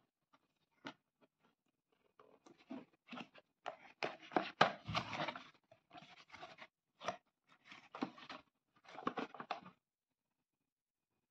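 Cardboard toy box being opened by hand: irregular rustling, scraping and tapping of the box flaps and packaging, busiest a few seconds in and stopping shortly before the end.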